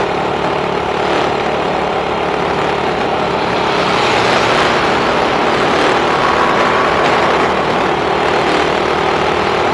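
Steady buzzing drone of a JJRC X11 quadcopter's motors and propellers in flight, one unchanging hum under a rush of air noise.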